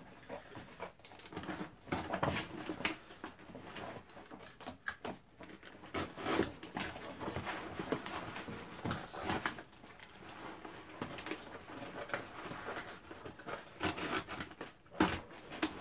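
Scissors and a utility knife cutting through packing tape on cardboard boxes: irregular scraping, slicing and clicking, with the rustle and flap of the cardboard being pulled open.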